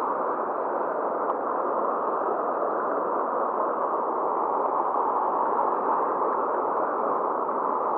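Steady rush of turbulent river water churning below a weir, a dull, even noise with no breaks.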